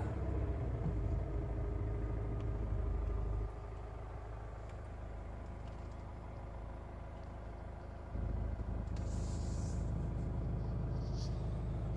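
Low, steady rumble of a car heard from inside the cabin. It drops quieter about three and a half seconds in and comes back about four seconds later, with a short hiss near the end.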